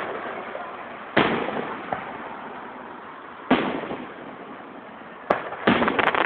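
Aerial firework shells bursting: single loud booms about a second, three and a half and five seconds in, then a quick volley of smaller pops near the end.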